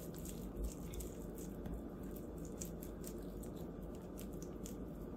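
Faint wet squishing and small sticky clicks of a hand rubbing barbecue sauce into raw pork belly.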